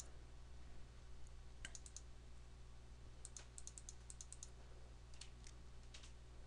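Faint computer mouse button clicks in quick runs, a dozen or so a few at a time, as the mouse repeatedly clicks a scrollbar arrow, over a steady low hum.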